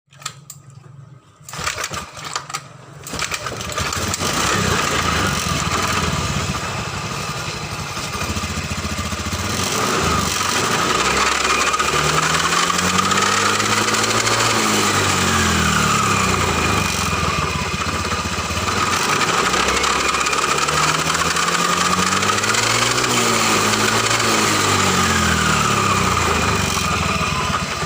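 Honda BeAT Pop scooter's 110 cc single-cylinder engine starting in a few short goes, then running and revved up and back down twice. The belt-drive CVT housing is said to make a rough, grating noise when the scooter is running.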